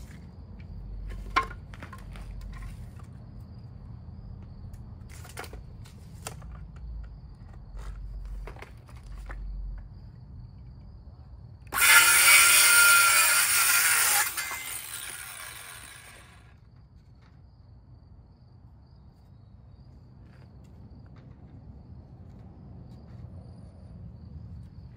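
Cordless circular saw starting up and cutting through a thin wooden trim strip for about two and a half seconds, then the blade winding down for another two seconds. Before the cut, a few light clicks and knocks as the wood is measured and handled.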